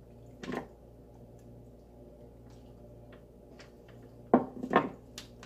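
Small clicks and knocks from handling and cutting a whole raw chicken with a knife over a stainless steel sink: one sharp knock about half a second in, faint ticks, then two louder knocks close together near the end, over a steady low hum.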